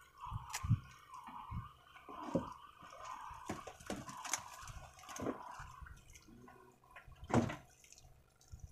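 Sea water lapping and splashing against a small wooden fishing boat, with low wind rumble on the microphone. There are a few sharp knocks, the loudest about seven seconds in.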